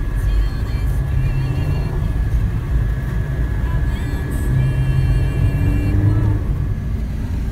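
Steady low road and engine rumble heard from inside a moving car's cabin, with music playing over it.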